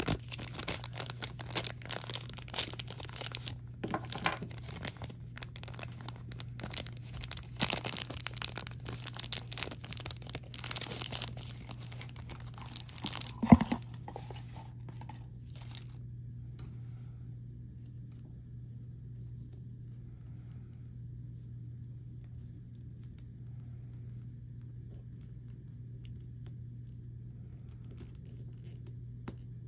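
Plastic blind-box packaging being crinkled and torn open by hand, dense crackling rustles with one sharp loud click about halfway through. The handling stops about halfway through, leaving only a steady low hum.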